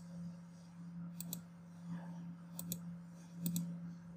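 Computer mouse button clicking three times, spaced about a second apart. Each click is a quick double tick of press and release, over a faint steady low hum.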